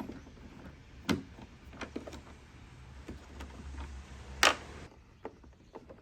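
Torx T25 screws being backed out of a Tesla Model X window-switch mount: scattered clicks and taps of the driver bit and plastic parts, the loudest about four and a half seconds in.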